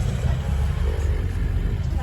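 Steady low rumble inside a Volvo B5TL double-decker bus under way: diesel engine and road noise heard from the passenger cabin.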